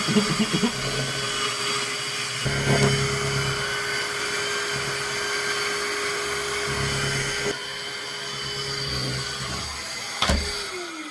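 Shark vacuum mop running, its motor holding a steady hum over the hiss of suction as it scrubs the floor. Near the end a click, then the motor's pitch falls as it winds down.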